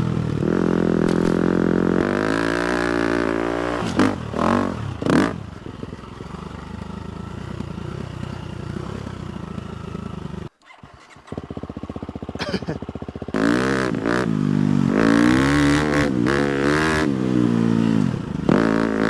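250cc four-stroke motocross bike engines idling with quick throttle blips, the revs rising and falling. The sound drops out briefly about halfway through.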